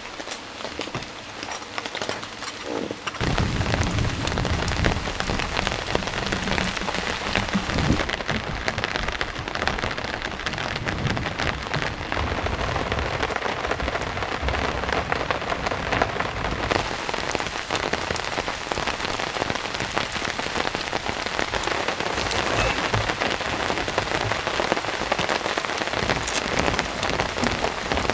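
Steady rain falling and hitting surfaces. About three seconds in it gets abruptly louder and fuller, with much more low rumble.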